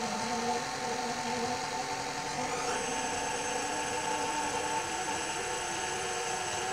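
KitchenAid Classic stand mixer running steadily with its wire whisk beating cake batter in a steel bowl: a motor whine with the whisk's rattle and whoosh. The pitch steps up slightly about two and a half seconds in.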